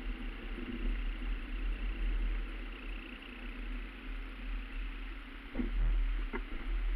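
Steady low engine and road rumble of a car driving along a country lane, heard from inside the cabin. Two brief sharp sounds come about a second apart near the end.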